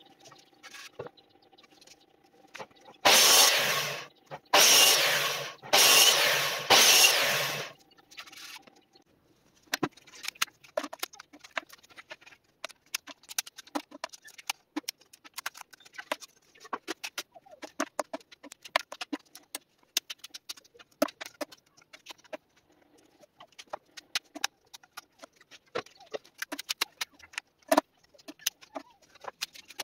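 A sliding mitre saw cuts into pine boards four times in quick succession, each cut about a second long, cutting shallow kerfs into the board ends, with the motor humming between cuts. After that, wooden boards knock and clack together at irregular intervals as they are handled and stacked.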